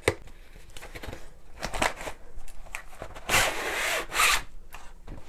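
Cardboard lid of a paint-by-numbers kit box rubbing and sliding off the box, with a few light handling taps; the loudest scraping comes a little past halfway.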